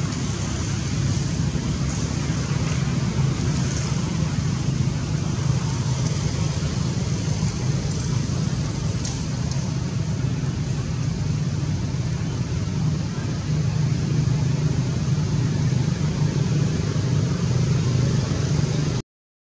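Steady outdoor background rumble and hiss, with no distinct event, cutting out briefly to silence near the end.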